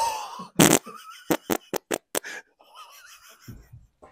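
A man farting close to a microphone: a loud blast about half a second in, then a rapid run of short pops, about five a second, like a machine gun. It is called massive.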